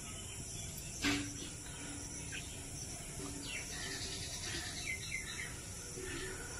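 Small birds chirping in the background, with one sharp click about a second in and a faint steady hum underneath.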